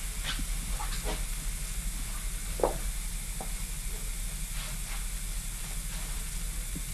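Steady hiss and low hum of a home camcorder recording in a quiet room. A few faint clicks of the camera being handled, and one short knock about two and a half seconds in.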